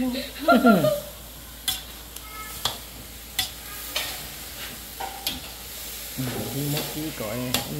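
Food sizzling as it fries in a pan while it is stirred, the utensil clicking against the pan every second or so. A person's voice is heard briefly at the start and again near the end.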